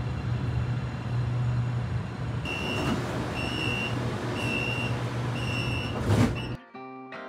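Metro train standing at an underground platform with a steady low hum, then the door-closing warning: four evenly spaced high beeps, followed by a thud as the doors shut. Near the end the sound cuts off suddenly and acoustic guitar music takes over.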